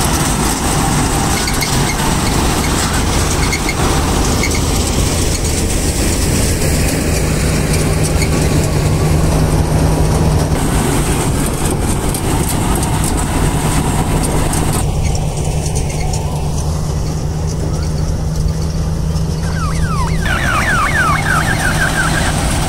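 Balkar B-525 tractor-mounted combine harvester running under load while harvesting: a loud, steady engine drone with the noise of the cutting and threshing machinery. The sound shifts abruptly twice in the second half.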